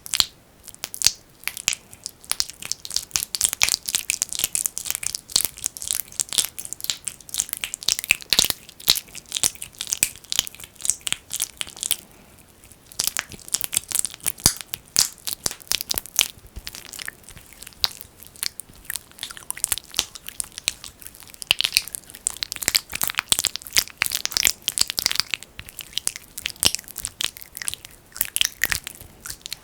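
Fingers squishing and rubbing thick Vaseline (petroleum jelly) right at the microphone, an ASMR ear massage: dense, sticky crackling and popping, with a brief lull about twelve seconds in.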